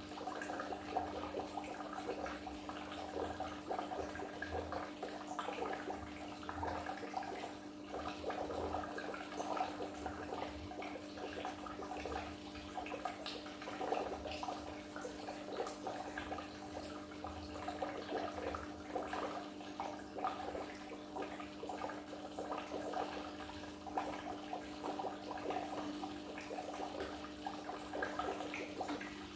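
Goldfish aquarium water trickling and splashing steadily, with a constant low hum underneath.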